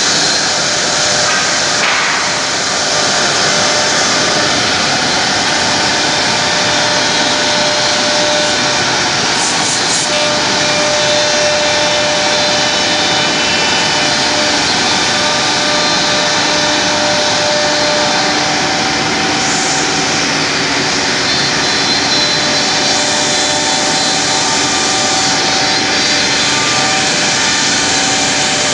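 Woodmaster CNC router spindles running and routing slots into a wooden door panel: a steady whine over dense cutting noise that goes on without a break.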